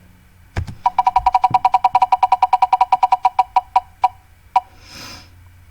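Online name-picker wheel spinning, its ticker clicking rapidly with a short pitched tick, about ten a second, that slows and stops about four and a half seconds in as the wheel lands on the winner.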